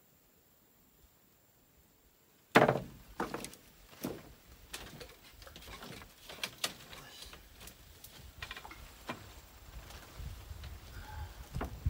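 A person's bare feet knocking on a raised bamboo-slat floor, the slats clattering and creaking under the weight as he walks across and lies down. It starts with a sharp knock, the loudest sound, about two and a half seconds in, after near silence, and irregular knocks follow.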